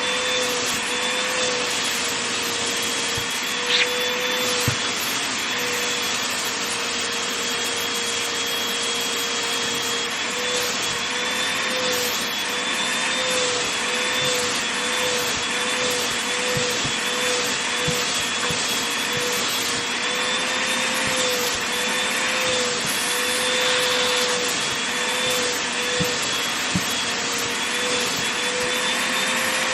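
Vacuum cleaner running steadily while vacuuming a blanket, its motor whine wavering slightly in pitch, with a few faint clicks.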